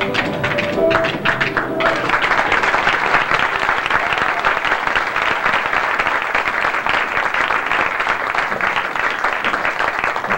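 A music number with a tapping beat ends about two seconds in, then an audience applauds steadily.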